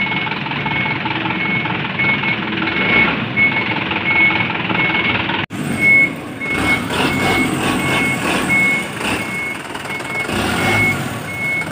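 Mitsubishi Fuso Canter truck's reversing alarm beeping about twice a second, one steady high tone, over the truck's diesel engine running as it backs up. The audio drops out for an instant a little past halfway.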